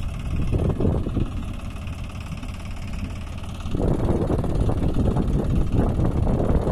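Tractor engine running steadily at idle. About four seconds in it grows louder and rougher.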